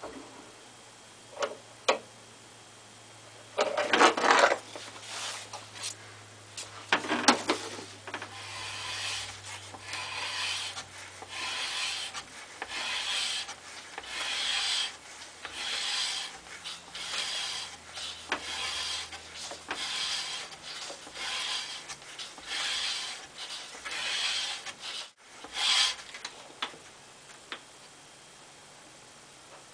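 Leather belt strop rubbing against a Wetterlings axe's bit in repeated strokes, about one a second, after two louder scrapes near the start. The stropping flexes the burr left by reprofiling back and forth until it breaks off.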